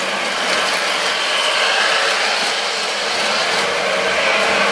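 O gauge electric model train running on three-rail tinplate track: a steady whirring rumble of the motor and the wheels on the metal rails.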